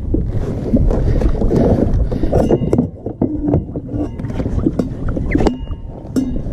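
Several sharp knocks and rattles of gear being handled on a plastic fishing kayak, over steady wind and water noise.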